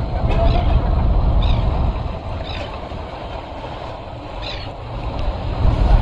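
Low, uneven rumble of a boat running at sea, easing off in the middle and building again near the end, with a few short high chirps over it.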